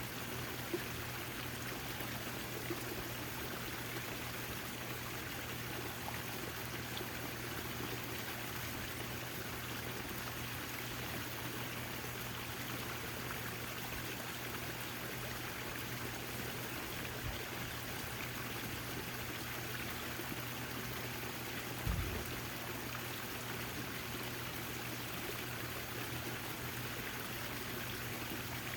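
Backyard garden fountain: water splashing and trickling steadily, with a faint steady low hum underneath. A brief soft low thump about three quarters of the way through.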